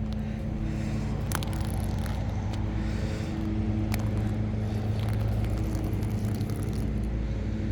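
A motor runs steadily with a low, even hum, and a few faint clicks come through over it.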